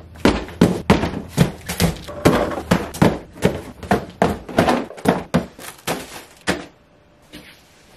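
Cardboard shipping boxes being set down and stacked on one another: a quick run of thunks, about three a second, that stops about six and a half seconds in.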